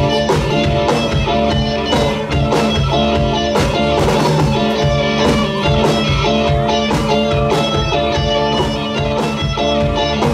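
Rock band playing live without vocals: two electric guitars, electric bass and a drum kit, with a steady drum beat.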